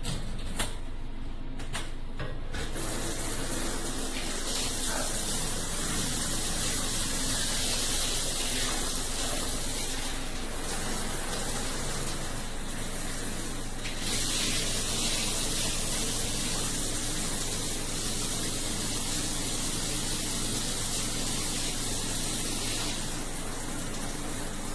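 Water spraying steadily from a rain shower system, turned on a couple of seconds in and getting a step louder about halfway through.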